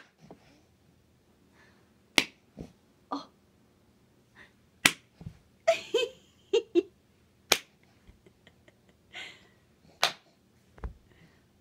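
Single sharp hand claps, four of them, spaced two to three seconds apart. In the middle, between claps, a baby makes a few short cooing sounds.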